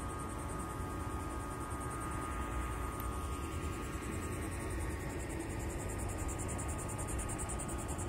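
Insects trilling, a fast high-pitched pulsing that keeps on steadily, over a low steady rumble.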